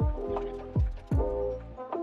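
Background music with a steady beat: deep bass hits that drop in pitch, under held chords.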